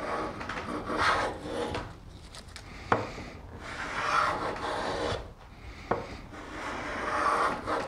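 Lie-Nielsen low-angle rabbet block plane taking shavings off the edge of a cherry board in three strokes of about a second each, cutting smoothly. A sharp knock falls between the strokes, twice.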